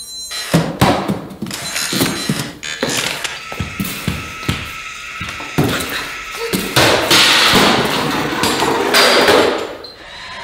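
A humanoid robot being shoved with a hockey stick and collapsing to the floor: a rapid run of thuds and knocks, with a longer rushing noise about seven to nine seconds in.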